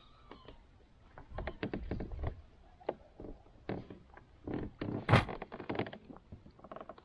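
Short knocks and clicks of fishing gear against a plastic fishing kayak while a hooked smallmouth bass is brought alongside, thickest through the middle, with one sharp, loudest knock about five seconds in.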